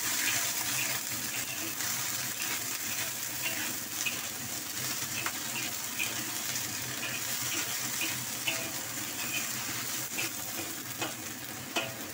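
Chinese cabbage and carrots frying in a metal wok with a steady hiss, as a metal spatula stirs and tosses them, making repeated short clicks and scrapes against the wok and a few sharper knocks near the end.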